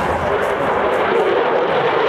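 Jet noise from a Eurofighter Typhoon's twin EJ200 turbofan engines as the fighter banks overhead in a display pass: a steady, dense rushing sound that grows slowly louder.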